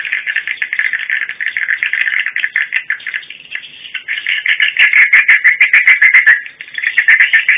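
Recorded swiftlet call ('supersonic' lure sound) played through roof-mounted horn speakers to draw swiftlets to a swiftlet house: dense, rapid twittering chirps. About four and a half seconds in they turn into a faster, louder, evenly spaced run of chirps.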